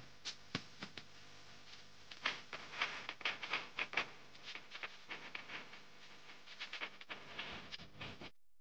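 Footsteps on a gravel and dirt path: a quick, irregular series of short scuffing steps that cuts off suddenly near the end.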